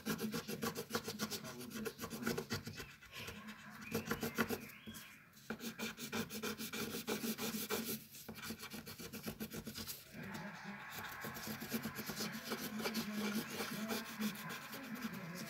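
Colour pencil shading on paper, rubbing in quick back-and-forth strokes, with a few short pauses.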